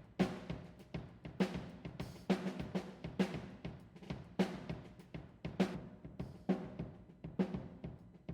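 Drum kit track playing back in a steady groove of kick, snare and cymbals, with a loud hit roughly every second and lighter hits between.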